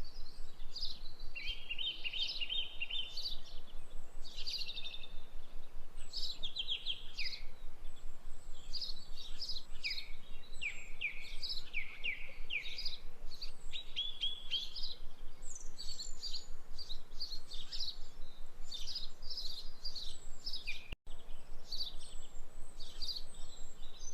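Birds chirping and trilling continuously, many short overlapping calls and quick falling notes, with a momentary dropout near the end.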